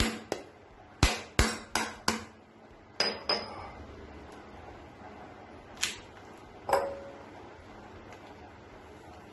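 The hard, woody shell of a bel (wood apple) is struck repeatedly with a steel tool to crack it open: a quick run of sharp knocks. Two more single knocks come a few seconds later.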